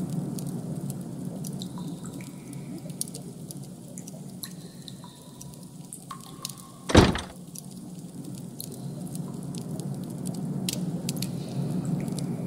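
Designed ambient soundtrack: a steady low hum with scattered faint clicks, drip-like ticks and brief faint tones, and one loud thump about seven seconds in.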